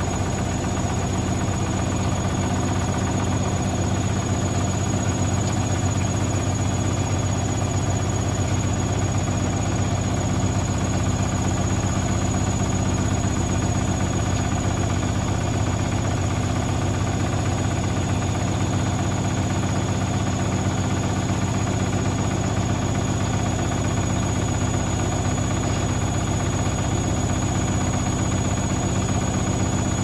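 Hotpoint Ultima WT741 washing machine running its final spin with a load of towels, the motor and drum giving a steady hum and vibration. The load is unbalanced and the drum's shock absorbers have come off.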